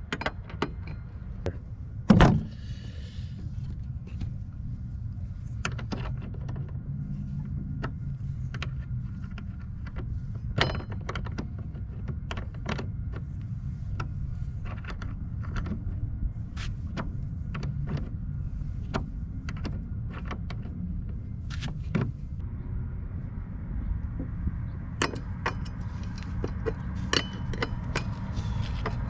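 Irregular metal clinks and clicks of a hand wrench working the 10 mm bolts that hold a john boat seat, with one loud knock about two seconds in, over a steady low rumble.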